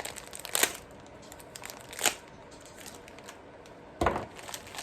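Plastic wrapping on screwdrivers crinkling as they are handled, in three short rustles about half a second in, around two seconds, and just after four seconds, the last with a knock.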